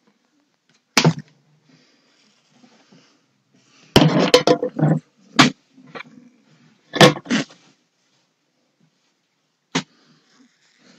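A dog barking in short bursts: one bark about a second in, a rapid run of barks around four to five seconds, a few more single barks after that, and one near the end.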